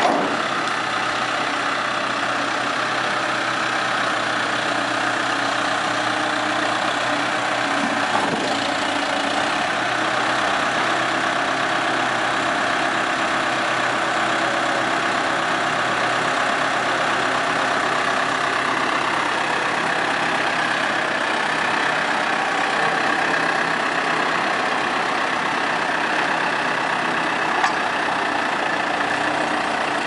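Diesel engine of a New Holland LB75B loader backhoe running steadily while the loader, backhoe and stabilizers are worked, with a few short knocks.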